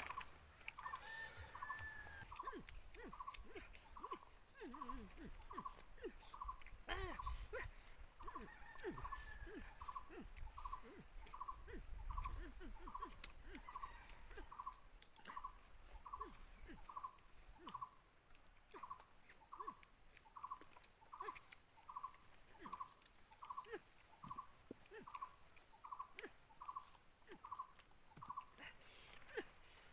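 Forest insects keep up a steady high-pitched drone, which cuts out briefly twice and stops near the end. Under it, a short call repeats about twice a second, with scattered small clicks.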